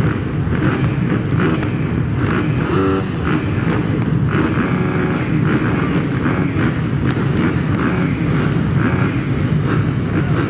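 A pack of motocross bikes running together at the starting gate, a dense, continuous engine noise whose loudness rises and falls as the riders work their throttles while they wait for the start.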